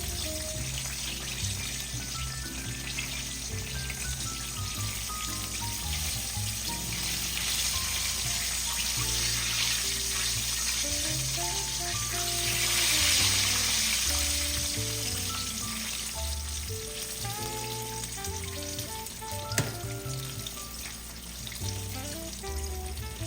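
Chicken frying in hot oil: a steady sizzle that swells louder about halfway through, with background music playing.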